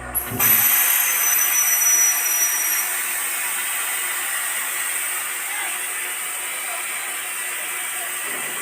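Large industrial air compressor venting its compressed air with a sudden loud hiss just after being switched off; it starts with two high whistling tones that fade after a few seconds, then settles into a steady rush as the pressure bleeds down.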